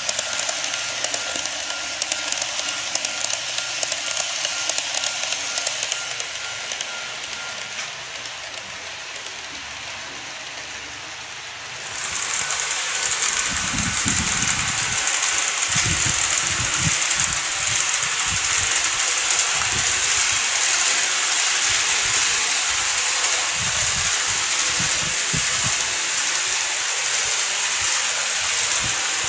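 KATO N-gauge 211 series model train running on track: a steady rattling hiss of wheels and motor with a thin steady whine, fading about eight seconds in. About twelve seconds in the sound turns abruptly to a louder, hissier rush with a few low thumps.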